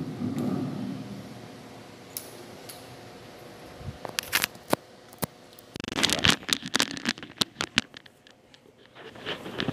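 Microphone handling noise: a low rumble as the stand microphone is moved, then, from about four seconds in, a run of sharp clicks and rustling scrapes as a clip-on lavalier microphone and its cable are handled and clipped onto a shirt collar.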